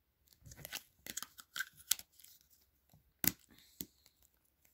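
Plastic slime tub being handled: an irregular run of small sharp clicks and crackles, with a louder click a little past three seconds in.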